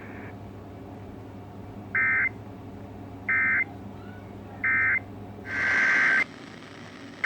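Emergency Alert System SAME data tones over a steady radio hum. Three short identical bursts of the end-of-message code, about 1.3 s apart, close the warning. Near the end a longer burst swells in: the start of the header code for the next alert.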